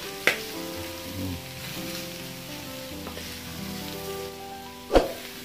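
Pork and onions sizzling in a stainless Saladmaster electric skillet, frying in the pork's own rendered fat, while a wooden spatula stirs and scrapes through them. The spatula knocks sharply on the pan twice, the louder knock about five seconds in.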